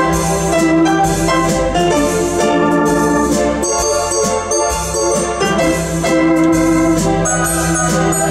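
Lowrey Prestige electronic organ with a Wersi EX-1 expander playing in foxtrot time, with organ and piano voices over a string background. High bell-like glockenspiel notes come in about halfway through and again near the end.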